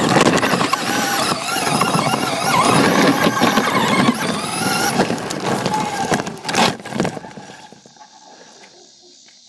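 Small RC car driving, heard from on board: its electric motor whines, rising and falling in pitch with the throttle, over a rattling rumble of the wheels on the ground. Two knocks come near the end, and the car goes quiet about seven and a half seconds in.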